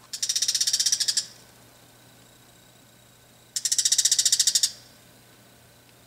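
Bull-headed shrike giving its shrill, rapid alarm-and-threat call, a quick run of harsh notes like flint being struck. Two bursts of about a second each, the second about three and a half seconds after the first.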